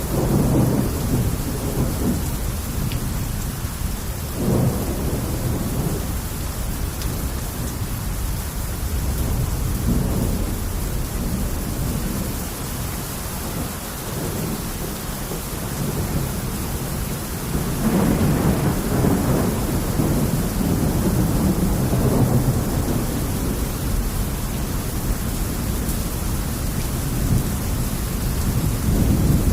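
Heavy rain pouring steadily, a dense hiss, with low rumbling swells: a short one about four seconds in and a longer one for several seconds past the middle.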